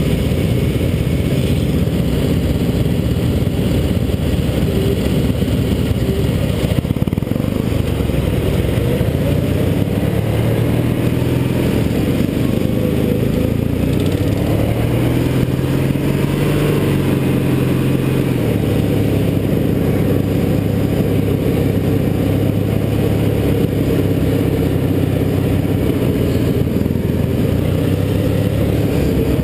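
Racing lawn tractor engine running hard at high revs, heard up close from the driver's seat. Its pitch swells and falls back around the middle.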